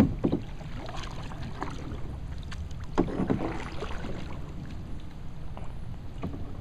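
Canoe paddle strokes splashing in the water, with a sharp knock at the very start and a second burst of splashing about three seconds in.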